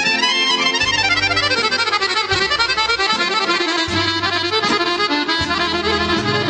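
Accordion played fast: quick runs of notes sweep up and down over steady bass notes.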